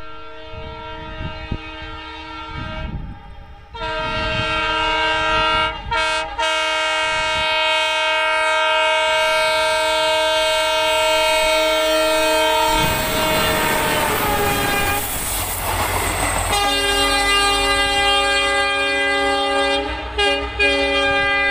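Locomotive of a railway trial train sounding long blasts of its multi-tone horn as it approaches at speed, with short breaks near the start. About thirteen seconds in, the horn's pitch drops as the train passes, with a rush of wheel and engine noise. The horn then keeps sounding at a lower pitch as the train moves away.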